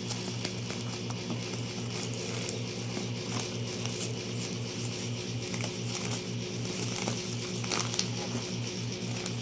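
Plastic snack packaging crinkling and crackling as it is handled, in scattered short clicks over a steady low hum.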